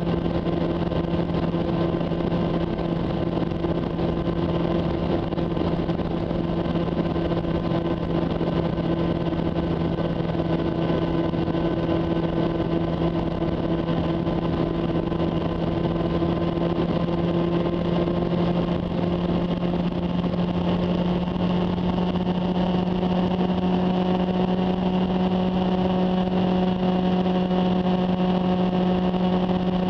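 Honda CB400 Super Bol d'Or's inline-four engine running steadily under way, its pitch creeping up slightly about two-thirds of the way through, over a steady rushing noise.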